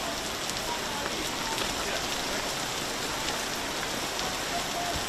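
Heavy hail and rain falling on the street, a steady dense hiss.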